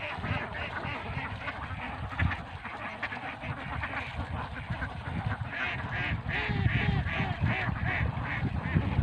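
A flock of five-month-old itik, Philippine native ducks, quacking in a chorus of overlapping calls that gets busier in the second half. Under it runs a low rumbling noise that grows louder toward the end.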